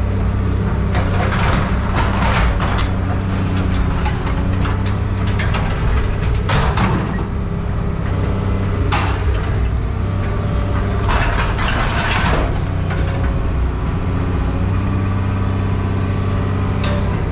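A heavy machine's engine running steadily, with bursts of scrap metal clattering and crunching every few seconds as the scrap is moved.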